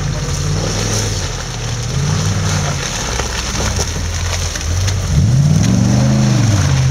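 Off-road 4x4's engine running under load, revved briefly about two seconds in, then rising in a longer, louder rev that falls away again near the end.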